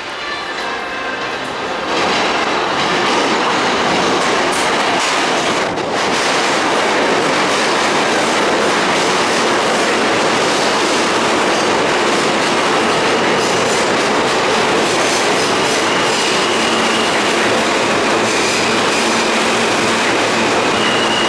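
New York City Subway R160 train pulling into the station alongside the platform. The sound of the wheels on the rails grows loud about two seconds in and stays loud as the cars pass. A high steady whine comes in over the last few seconds.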